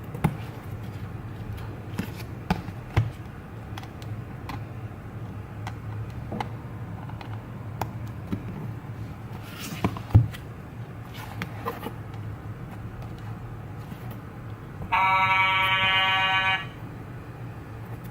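A steady low hum with scattered clicks and knocks. About three seconds before the end, a loud buzzing horn-like tone sounds for about a second and a half and then cuts off.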